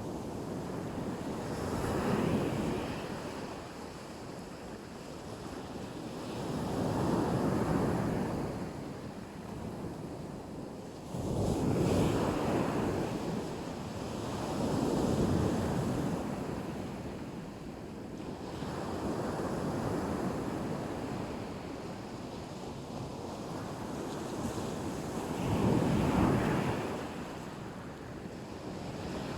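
Black Sea waves breaking and washing up on the shore, swelling and falling back about every four to five seconds, six waves in all. One wave comes in with a sharper rush about a third of the way in.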